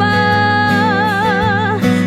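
Worship song: a singer holds one long note over acoustic guitar and bass, with vibrato starting about halfway through.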